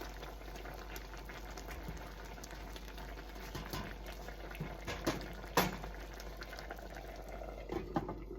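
Chicken and rice mixture simmering in a covered pan on low heat: steady bubbling with scattered small pops, a few sharper ones in the second half.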